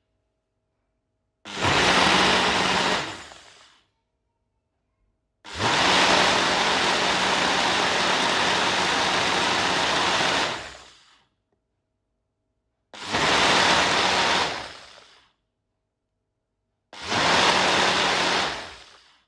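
Smoothie maker's blender motor run in pulses: four runs, three of about two seconds and one longer run of about five seconds in the middle, each starting abruptly with a steady whir and low hum, then spinning down to silence.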